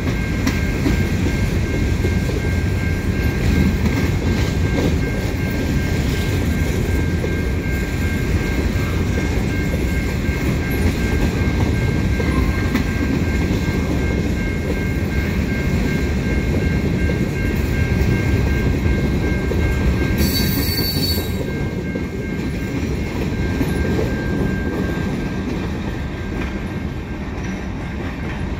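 Freight train of covered hopper cars rolling past: a steady rumble and rattle of wheels on rail, with a thin steady high squeal over it, easing slightly near the end.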